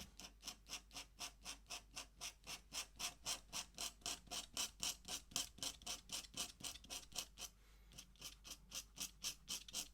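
Ink pen scratching across paper in quick, even hatching strokes, about four a second, with a short pause near the end before a few more strokes.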